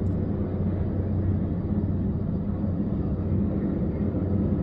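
Helicopter running steadily overhead, a continuous low drone from its rotor and engine, as it hovers on a long-line lift.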